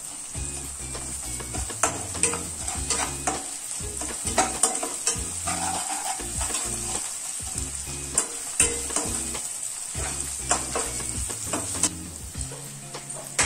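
Onions, whole spices and ginger-garlic paste sizzling in hot oil in a nonstick pan, while a slotted spatula stirs them, scraping and tapping against the pan at irregular intervals.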